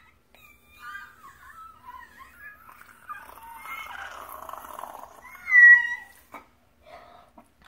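High-pitched, wavering vocal whines and squeals, with one loud squeal about five and a half seconds in.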